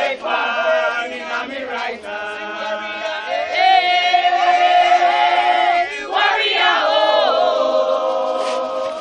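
A group of voices singing together, with one long held note from about three and a half seconds in until nearly six.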